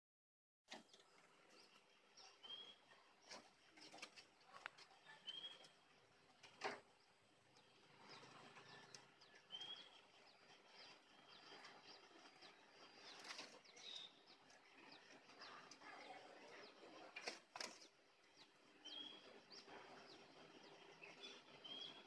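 Faint wing flaps and small knocks from spotted doves moving about on branch perches in a wire aviary, with a short high chirp every few seconds.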